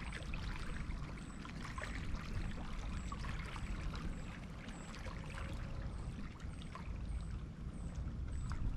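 Small waves lapping and trickling at the edge of a shallow sandy shore, with scattered small splashes and wind rumbling on the microphone. A faint high chirp repeats almost twice a second throughout.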